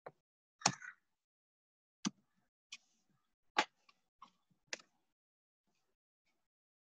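About eight sharp clicks from a computer keyboard and mouse as code is selected and deleted, spaced unevenly and stopping about five seconds in.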